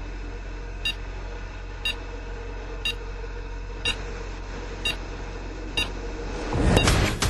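Electronic countdown beeps: a short high beep once a second, seven in all, over a steady low hum. Near the end a rising whoosh swells up.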